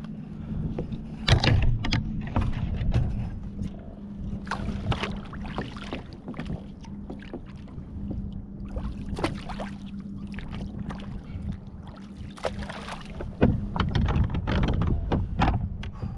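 Water splashing and slapping irregularly against a kayak hull under way, over a steady low hum.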